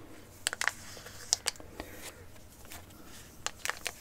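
Pokémon trading cards and their opened foil booster packet being handled: a few short, crisp crinkles and clicks, in small clusters about half a second in, around a second and a half, and near the end.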